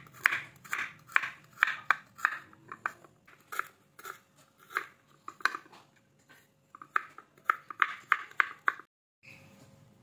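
Kitchen knife chopping raw carrots on a wooden cutting board: crisp chops about two a second, thinning out midway, then a quicker flurry of cuts near the end as the slices are cut into matchsticks.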